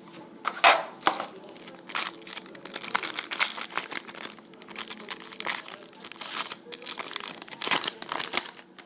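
Trading-card pack wrapper being torn open and crinkled by hand, an irregular run of crackles and rustling.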